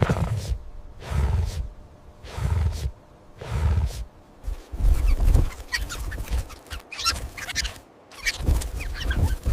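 Animal calls: a short call about once a second at first, then from about halfway a busier stretch of many short high chirps over lower sounds.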